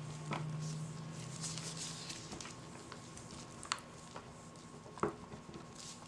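Silicone spatula stirring and scraping thickened cold process soap batter in a plastic pitcher: soft squishing and scraping with a few light clicks of the spatula against the jug's side. A faint steady hum lies underneath.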